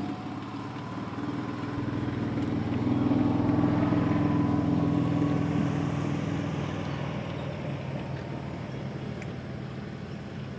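A motor vehicle engine running steadily. It grows louder over the first few seconds, then slowly fades, as a vehicle passing by or pulling away would.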